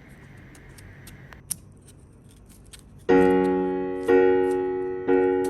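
Low room noise with a few faint clicks, then keyboard background music begins about three seconds in: sustained chords, a new one struck about once a second and each fading away.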